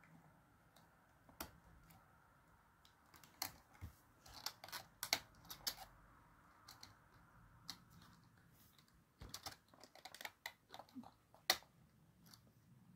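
Scattered light clicks and taps of a wire being worked into the metal spring terminals of an electronics kit board, bunched about three to six seconds in and again about nine to twelve seconds in.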